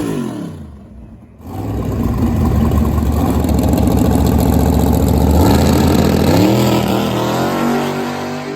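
A drag-racing car's engine at high revs, running loud and steady for several seconds. Its pitch climbs again around six seconds in, then it fades as the car pulls away.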